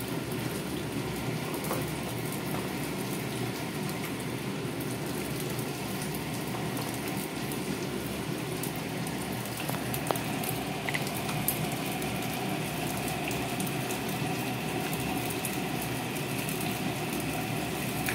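Steady hiss and bubbling of cooking on a gas stove: a pot of squash, shrimp and string-bean broth at a rolling boil, with fish frying in oil in a pan beside it. A few light clicks come about ten seconds in.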